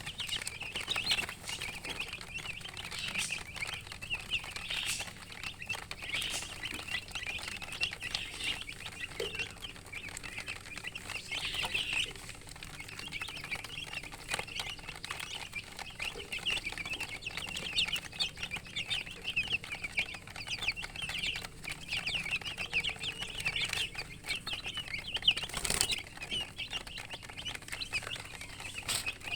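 A group of baby chicks peeping constantly, many short high chirps overlapping without a break, with occasional sharp clicks or taps among them, one louder knock near the end.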